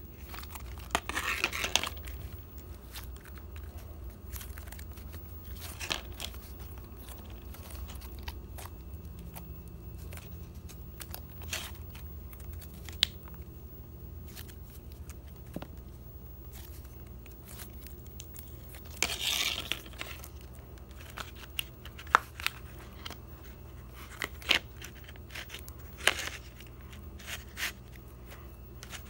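Hands kneading and stretching stretchy slime: scattered sticky clicks and pops, with two longer crackling, tearing bursts, one about a second in and one about two-thirds of the way through. A low steady hum runs underneath.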